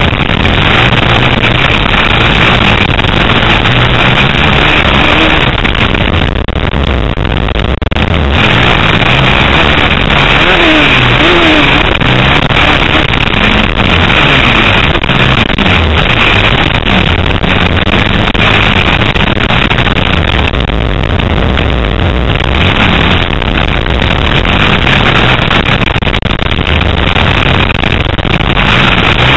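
Dirt bike engine running hard on a motocross track, revving up and down through the gears, loud and harsh as picked up by an onboard camera.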